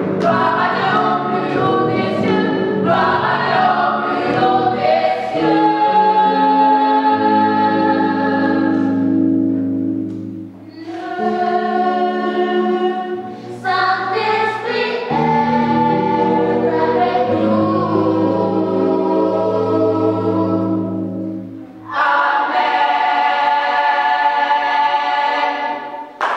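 Mixed choir of women's, men's and children's voices singing in harmony, moving from quicker syllables into long held chords over a low bass line, with brief breaths between phrases about ten seconds in and again near the end.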